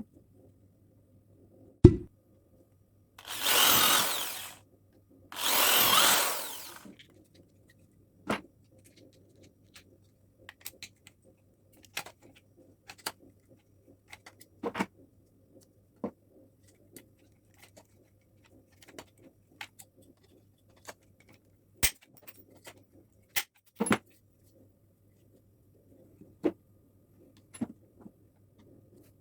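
Electric drill run in two short bursts of about a second and a half each, followed by scattered light clicks and knocks. There is one sharp knock just before the first burst.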